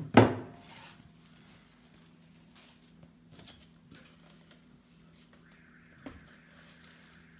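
A loud knock on the wooden chopping board just after the start, then quiet handling of cling film. Near the end comes a faint rustle as crumbly shortcrust pastry dough is tipped out of a plastic food-processor bowl onto the cling film, with a light knock of the bowl about six seconds in.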